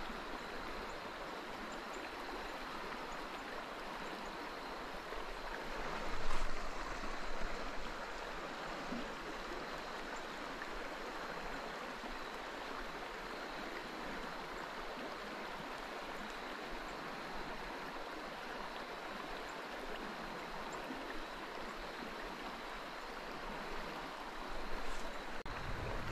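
Mountain trout stream running over rocks: a steady rush of moving water. A brief louder sound cuts in about six seconds in.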